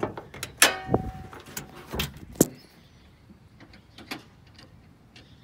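Several sharp clunks and clicks from a car's body panels and latches being handled, one followed by a brief metallic ring. The loudest knocks fall in the first two and a half seconds, with only faint ticks after.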